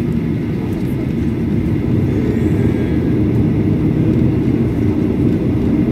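Cabin noise of a Boeing 737-800 taxiing: a steady low rumble from its CFM56 engines at low thrust and the moving airframe, heard from inside the cabin, growing slightly louder.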